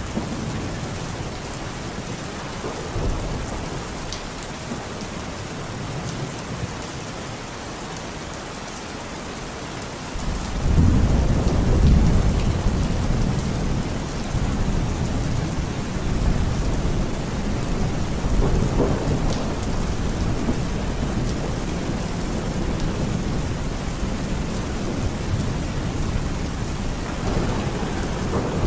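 Heavy rain falling steadily. About ten seconds in a low rumble of thunder starts suddenly, swells, and keeps rolling under the rain.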